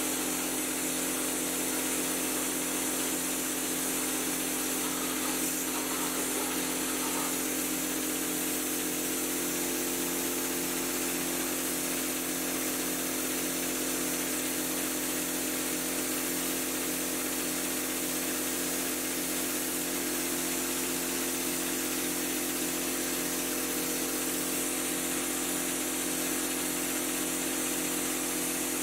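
Drywall texture-spraying rig's motor running steadily with an even hum that does not change.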